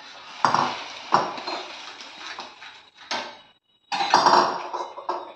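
Metal spatula scraping and knocking against a steel kadhai as semolina sheera is stirred on a gas stove, with irregular clatters.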